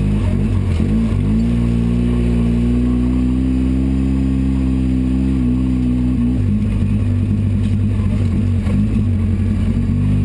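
Polaris RZR 800 side-by-side's twin-cylinder engine running under throttle, heard from inside the cab. The revs dip and pick back up about a second in, hold steady, then turn rougher and slightly lower a little past the middle.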